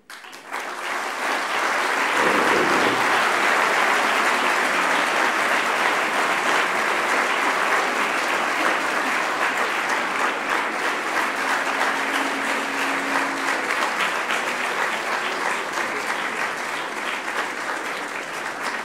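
Audience applauding, swelling up within the first couple of seconds and then going on steadily, easing off slightly near the end.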